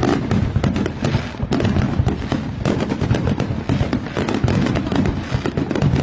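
Fireworks display: many aerial shells bursting and crackling in quick succession, the bangs overlapping in a dense barrage without a break.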